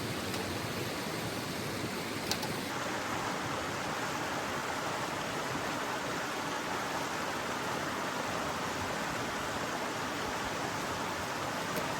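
Steady rushing of a mountain river. There is a single click about two seconds in, and a brighter hiss joins shortly after.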